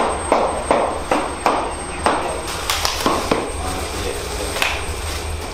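Rhythmic sharp knocks, about three a second for the first three seconds, then a few scattered ones, over a steady low rumble.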